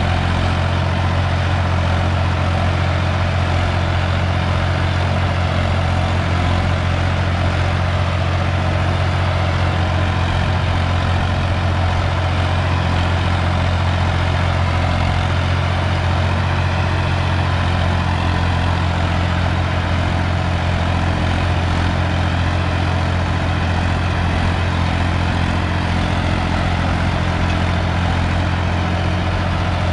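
Swaraj 855 FE tractor's three-cylinder diesel engine running steadily under load while it pulls and drives a rotavator tilling the soil, a deep, even hum with the rattle of the implement over it.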